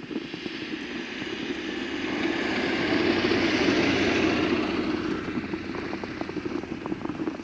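A vehicle passing on a snow-covered street, its tyres hissing, rising to a peak about halfway through and then fading away. Footsteps crunch in the snow throughout.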